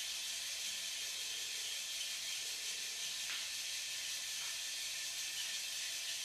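Small DC motor and plastic gear train of a toy kit car running with a steady high whine. It is running off the charging current while its supercapacitor is charged from a battery pack.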